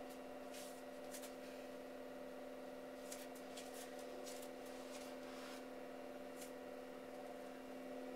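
Vibe Plate vibration platform running at speed setting 20, giving a steady hum, with light scattered ticks as hands and feet shift on its mat.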